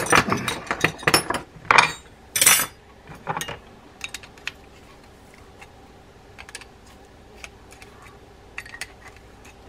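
Steel wrenches clinking against each other and the workbench as one is put down and another picked up, with several sharp clinks in the first few seconds. After that come faint scattered ticks as the wrench works the drag adjuster nut on the fishing reel's main shaft.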